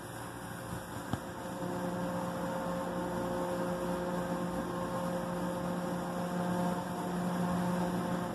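Electric drive motors of a Christ Genius rollover car wash: a click about a second in, then a steady electric hum with a clear pitch that cuts off abruptly near the end.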